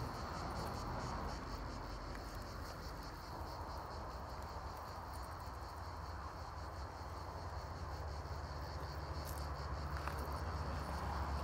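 Insects trilling steadily: a continuous high buzz with a fast, even pulse, over a low rumble.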